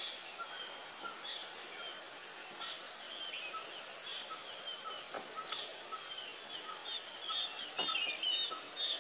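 A steady, high-pitched insect trill under small birds calling in repeated short chirps, the calls growing busier near the end, with a few faint ticks.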